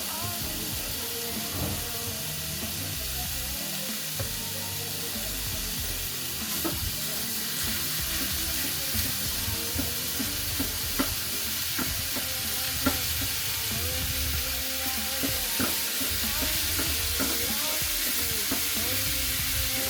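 Beef sizzling in a frying pan as it browns, with the spatula knocking and scraping against the pan every second or two as it is stirred.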